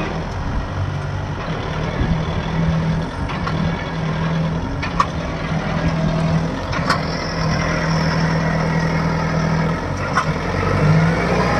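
Kubota 4x4 tractor's diesel engine running steadily under load while the rear wheels spin and dig into wet sand and mud, the tractor stuck. A few short sharp ticks come about five, seven and ten seconds in.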